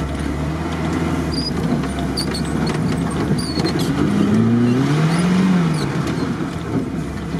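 VAZ-2101 Zhiguli engine heard from inside the cabin, pulling hard as the car drives off-road through tall grass. About four seconds in it revs up and falls back, over a steady rushing noise.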